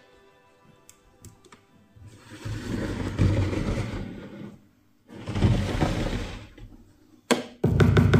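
Electronic music: after a quiet opening, two noisy passages swell up and fade, then a few clicks lead into a heavy bass beat near the end.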